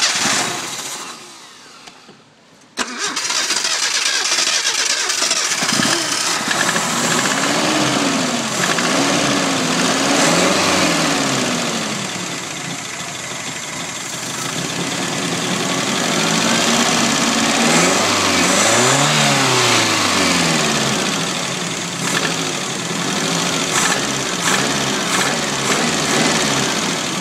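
Nissan Z22 inline-four engine, which has a rod knock, dies away, then starts again about three seconds in and keeps running. The throttle is blipped several times, the engine note rising and falling with it.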